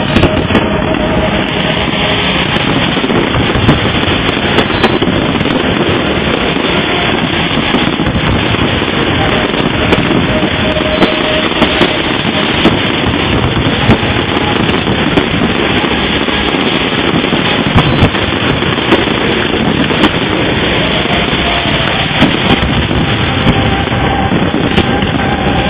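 Fireworks display: a loud, continuous barrage of bursts merging into a dense rumble, with many sharp cracks throughout.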